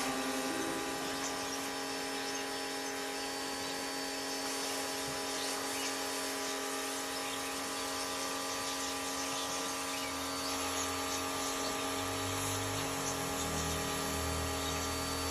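A steady mechanical hum with a constant whine, like a small electric motor running. Faint, irregular low rumbles join in during the last few seconds.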